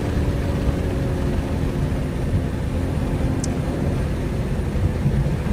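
Cabin sound of a BMW M340i's turbocharged inline-six cruising at highway speed: a steady low road and tyre rumble under a faint engine hum, which fades out about four seconds in.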